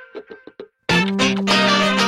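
Background music: one piece tails off, breaks off briefly, and a louder piece with long held low notes begins about a second in.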